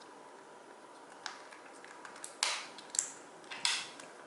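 Small plastic clicks and scrapes from a GAN magnetic speed cube being opened up by hand: a faint click about a second in, then three sharper snaps near the end.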